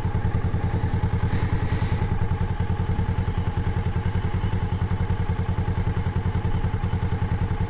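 Kawasaki Ninja 400's parallel-twin engine idling steadily, an even, rapid low pulse with no revving.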